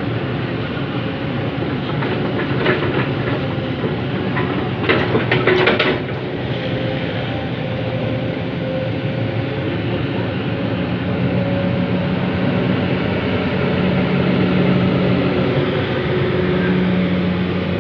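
Excavator working: its diesel engine and hydraulics run steadily, with short bursts of metal clanking and rattling about three and five seconds in. The engine drone grows somewhat louder in the second half.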